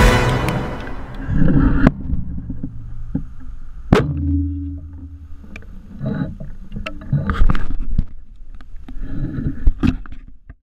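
Music fades out over the first two seconds. Then comes close handling noise of a compound bow with a camera mounted on it: scattered knocks, clacks and rattles. The sharpest crack is about four seconds in, followed by a short low hum.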